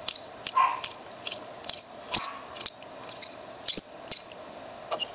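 Hand pin vise turning a 1/16-inch drill bit into a plastic miniature, the bit squeaking and clicking in the plastic with each twist, short high squeaks about twice a second at an uneven pace.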